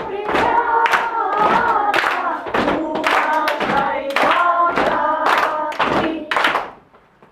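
A group of children singing a song together, with rhythmic hand clapping about twice a second; the singing and clapping stop shortly before the end.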